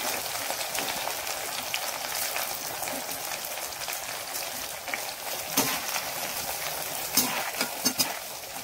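Onions sizzling as they fry in sesame oil in an iron kadai, stirred with a perforated metal spatula. The spatula scrapes and clicks sharply against the pan a few times in the second half.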